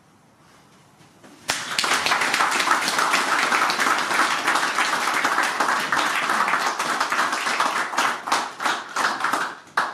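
A small audience clapping. It starts about a second and a half in, runs as dense steady clapping, then thins to a few scattered claps near the end.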